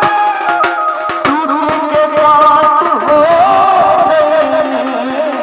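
Indian brass band (band baja) playing: a wavering wind melody over irregular drum beats.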